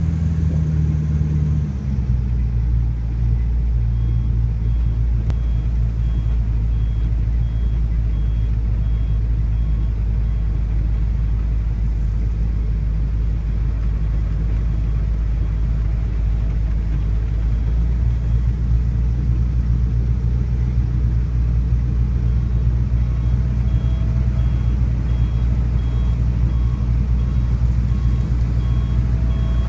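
A large engine running steadily with a low, even drone that shifts slightly about two seconds in. A faint high beep repeats rapidly in two long stretches.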